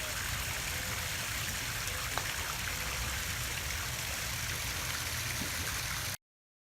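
Steady rushing noise with a strong low rumble, one short click about two seconds in, cutting off abruptly near the end.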